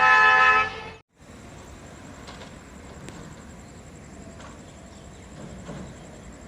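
Indian Railways train horn sounding very loud, then fading and stopping about a second in. After that comes a much quieter background with a steady high whine and a few faint clicks.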